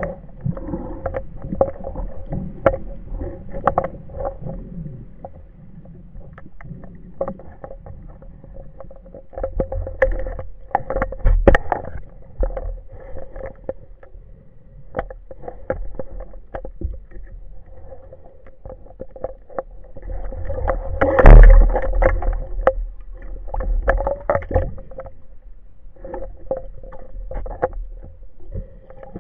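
Underwater sound heard through a camera housing: muffled water noise with many scattered clicks and a steady hum. There are low surges about 10 to 12 seconds in, and a heavy low thump, the loudest sound, about 21 seconds in.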